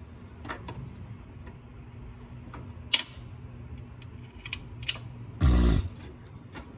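Scattered light metallic clicks and clinks of hand tools and parts being handled, with one sharper click about three seconds in and a louder dull thump a little after five seconds.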